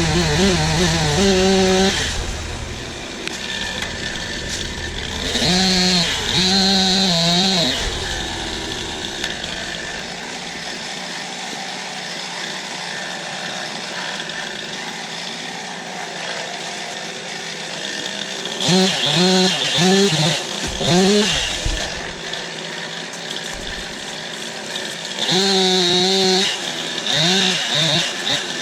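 Two-stroke chainsaw running at full throttle in four bursts, with a steadier lower running sound between them.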